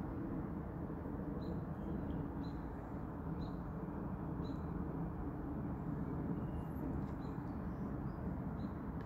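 Outdoor ambience: a steady low rumble, with a short high chirp repeating about once a second.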